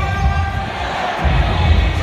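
Football crowd in the stands chanting in unison, many voices holding a sung tune, with a low uneven rumble underneath.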